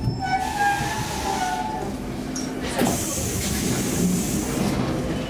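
Stockholm C15 metro train at a platform, with a steady low running hum. There is a short wavering squeal in the first two seconds, a knock about three seconds in, and then a steady high hiss of air.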